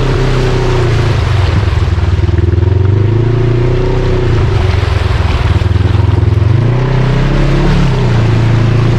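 Off-road vehicle engine running under varying throttle, its pitch dipping, then rising about seven seconds in and falling back, over a steady rush of noise.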